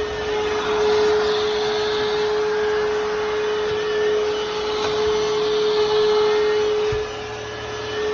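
Hoover H-FREE 100 cordless stick vacuum running, a steady motor whine over the rush of suction air. About seven seconds in there is a short knock and the sound drops in level for about a second before picking up again.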